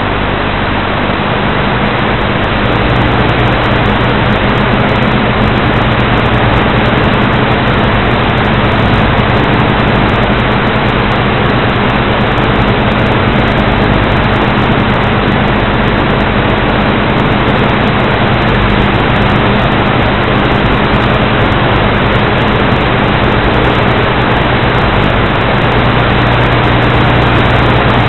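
Steady hum of a 450-size radio-controlled model aircraft's motor and rotors, heard from its onboard camera under loud wind rush. The hum holds one pitch throughout, getting a little louder about two and a half seconds in.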